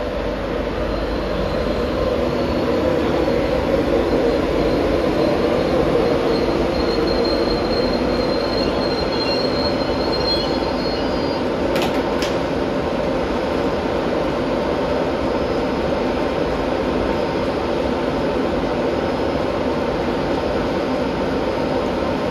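DB Cargo Class 60 diesel locomotive 60092, its eight-cylinder Mirrlees engine running loud and steady as it moves away under power. A faint thin squeal runs through the first ten seconds or so, and two sharp clicks come about twelve seconds in.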